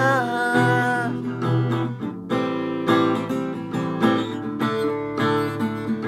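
Acoustic guitar strummed in a steady rhythm, with a held sung note trailing off in the first second.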